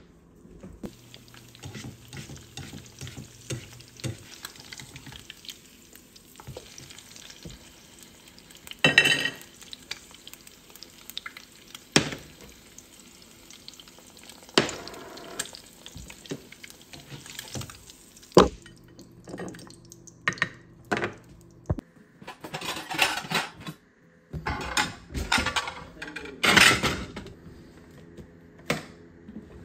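An egg frying in a nonstick skillet, a faint sizzle with scattered clicks and knocks of utensils and seasoning shakers. In the last several seconds, dishes clatter as a dishwasher is loaded.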